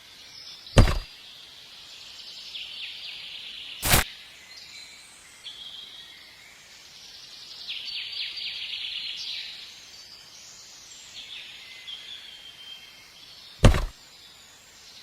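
Three sharp, brief knocks, about a second in, about four seconds in and near the end, over steady high chirping and trilling of birds in the background.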